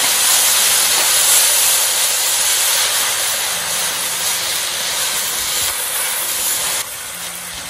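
Fresh wide rice noodles sizzling loudly in a hot oiled wok with fried shallots as they are tossed with tongs. The sizzle is a steady hiss that drops in level shortly before the end.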